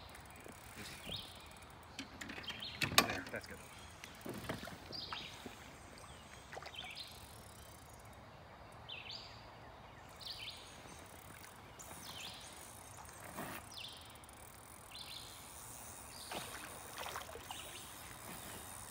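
Faint outdoor river ambience with short high chirps every second or so. A few sharp knocks or splashes stand out, the loudest about three seconds in.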